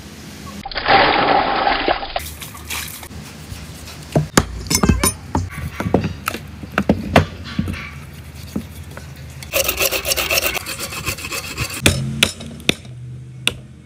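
A cleaver cutting raw cow-leg meat and bone on a wooden stump chopping block: a run of sharp chops, with stretches of scraping and rubbing about a second in and again around ten seconds.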